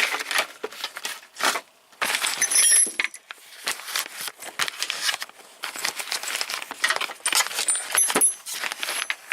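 Loose metal hand tools and small parts clinking and clattering as they are handled in a tool box drawer, with a few brief high metallic rings.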